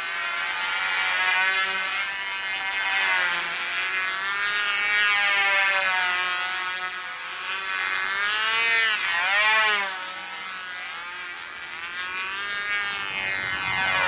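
Small radio-controlled propeller plane's motor and propeller whining in flight, the pitch swinging up and down as it passes and changes speed, with a sharp rise and fall about nine seconds in and another sweep near the end.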